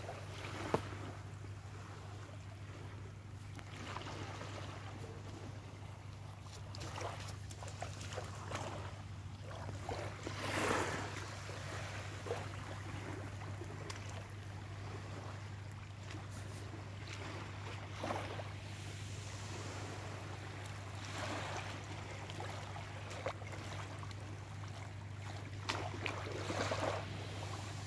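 Calm sea lapping at the shoreline, with soft washes of water every few seconds, strongest about ten seconds in and near the end, over a steady low hum.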